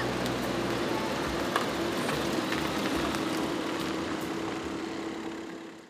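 Porsche 911's flat-six engine running as the car pulls away, a steady drone that fades out near the end.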